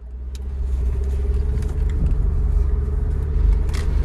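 Interior driving noise of a 2006 Audi A4 with a turbocharged four-cylinder engine: engine and road rumble heard from the cabin, getting louder over the first second, then steady, with a short click near the end. The engine is running normally after its cylinder head was rebuilt with new valves and a new timing belt.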